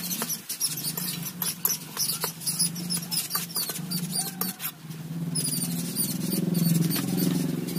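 Metal spatula scraping and stirring cabbage and potatoes in a large aluminium kadai, a rapid run of squeaky scrapes and knocks that stops about five seconds in. A steady low hum runs underneath.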